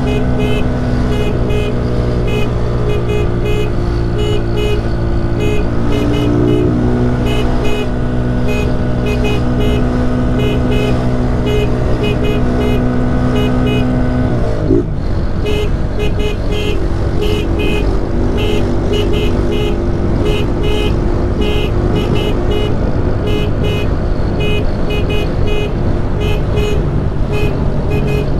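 Honda 160 motorcycle's single-cylinder engine running steadily under way, with wind and road noise; the engine note drops sharply about halfway through. A fast, high-pitched pulsing sound runs alongside.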